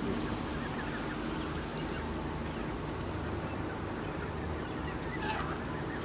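Canada geese flock calling now and then, with one short honk about five seconds in, over a steady low background rumble.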